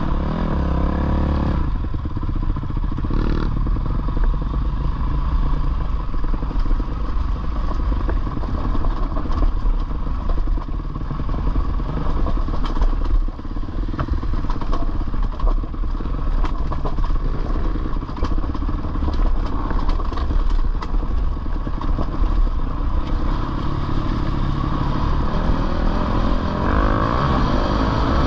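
Dirt bike engine running while riding up a rocky dirt trail, heard from on the bike, with the revs rising and falling near the start and again near the end. Rattling and clatter from the bike over the loose stones run through it.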